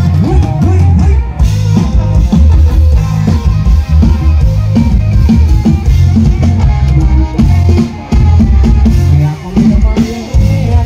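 Loud live band music from a Thai rot hae sound truck: drum kit with heavy bass drum driving an upbeat ramwong sam cha dance rhythm, played through the truck's speaker stacks.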